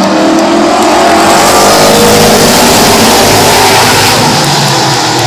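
A pack of Late Model Sportsman stock cars racing past, several engines overlapping with their pitches rising and falling. The sound swells to its loudest about two seconds in and eases slightly near the end.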